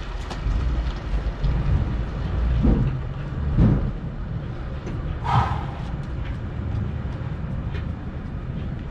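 Heavy knocks and a short metallic clank from a long bar and tools working at a truck's wheel during a wheel change, over a steady low rumble. The knocks come about two to four seconds in, the clank about five seconds in.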